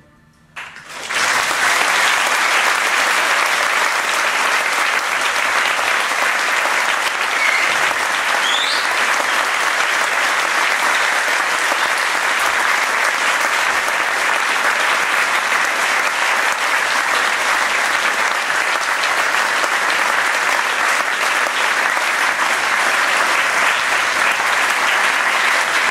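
Concert hall audience applauding, starting about a second in and going on steadily.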